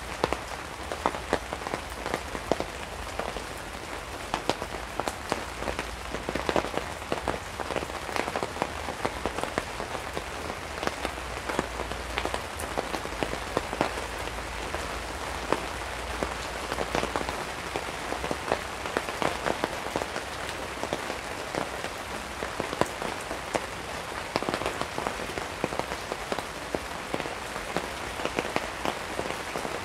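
Steady rain falling on a tarp overhead, a constant hiss dense with many sharp individual drop hits.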